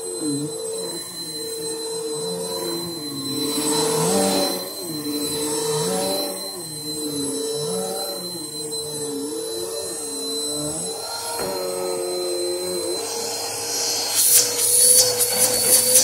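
Bissell PowerForce Helix upright vacuum cleaner running on carpet: a steady motor whine with a lower tone that wavers up and down every second or two as it is pushed back and forth. Near the end, a burst of sharp clicks and rattles.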